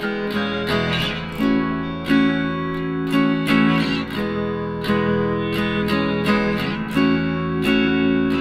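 Background music led by plucked acoustic guitar, with notes struck in a steady rhythm.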